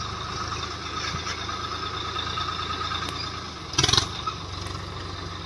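Swaraj 855 tractor's diesel engine running with a steady deep rumble, with a short loud clatter about four seconds in.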